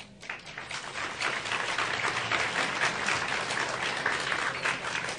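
Audience applauding, a dense patter of many hands clapping that builds over the first second or two and then holds steady.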